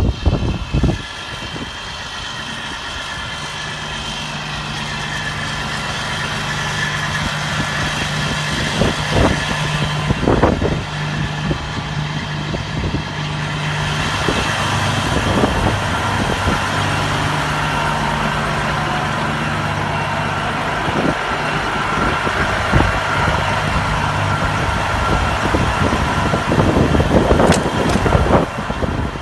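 Semi truck's diesel engine idling steadily, with a few scattered knocks.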